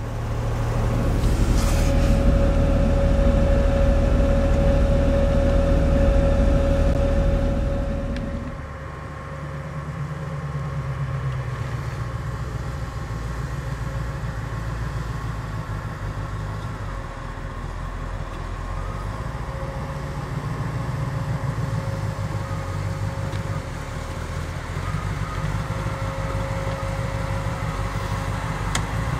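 Off-road vehicle engine running on a rock-crawling trail, louder for the first eight seconds or so, then settling to a lower running note with the revs rising and falling.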